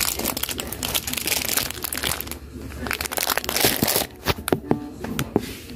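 Irregular crinkling and rustling with scattered clicks and knocks, densest in the middle.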